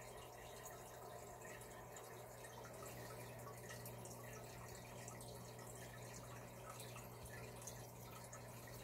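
Faint aquarium water sounds: small drips and trickling over a low steady hum.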